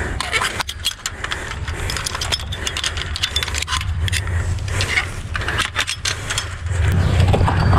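Handling noise of a large metal rope gaff and its rope against a metal railing and chain-link fence: scattered sharp clicks and metallic clinks, over a low rumble.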